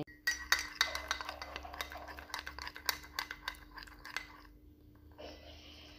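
Metal spoon stirring a thick honey mixture in a ceramic cup, clinking and scraping against the cup in quick irregular strokes; the clinking stops about four seconds in.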